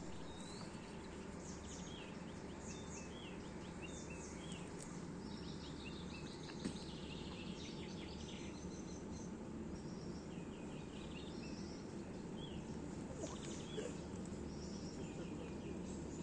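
Dawn chorus of several songbirds singing repeated short chirps and trills, over a steady low rush of water.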